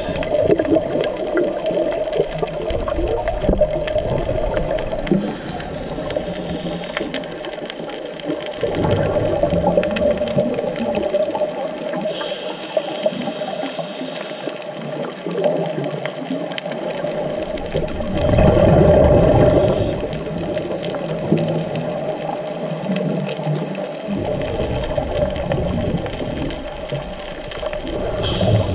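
Underwater sound from a scuba dive, heard through the camera housing: a steady muffled hum with the low rumble of a diver's exhaled bubbles coming every few seconds, loudest about 18 seconds in.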